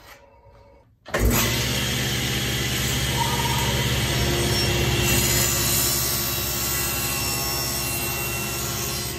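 Table saw switched on about a second in, its motor coming up to speed at once and then running steadily as a piece of half-inch plywood is crosscut on a sled.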